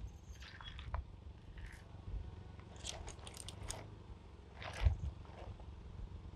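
Car tyre rolling over and squashing a silicone pop-it toy: a cluster of small crackles and pops about three seconds in and a dull thump near five seconds, over a low rumble.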